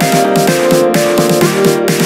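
Electronic background music with a steady fast beat and sustained synth notes.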